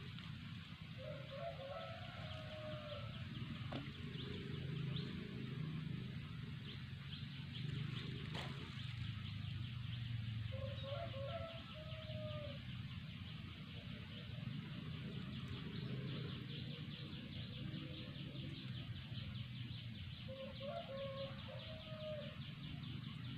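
A rooster crowing three times, about ten seconds apart, each crow about two seconds long.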